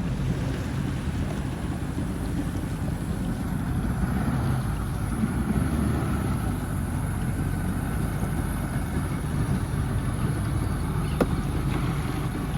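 Sea-Doo jet ski running steadily on the water, with wind rumbling on the microphone.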